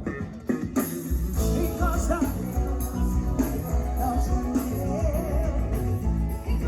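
Music with a steady beat, heavy bass and a singing voice, upbeat pop-rock in style.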